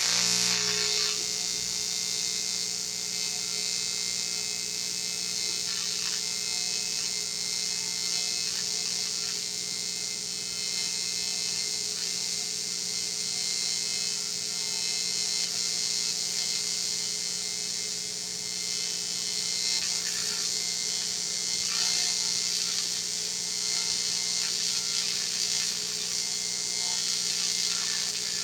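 Electric welding arc running on an aluminum drive shaft, striking suddenly and holding a steady buzz with a hiss through one long continuous bead.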